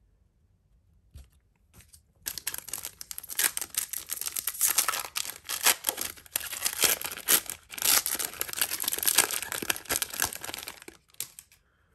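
Foil wrapper of a 2021 Bowman Platinum card pack being torn open and crinkled in the hands. A dense run of crinkling starts about two seconds in and stops shortly before the end.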